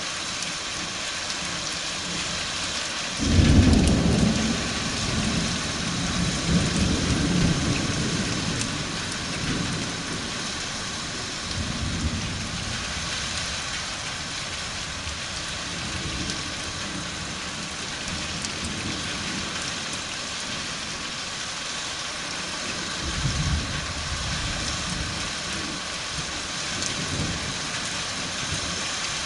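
Steady rain with thunder. A loud clap about three seconds in rumbles on for several seconds, followed by softer rumbles near the middle and twice toward the end.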